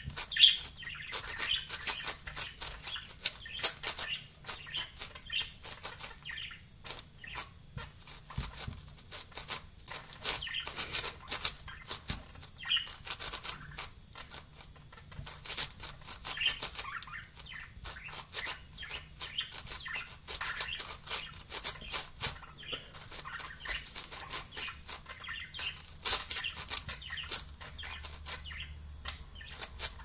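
Plastic 7x7 Rubik's cube being turned rapidly by hand: a steady, irregular run of clicks and clacks as its layers snap round, several a second.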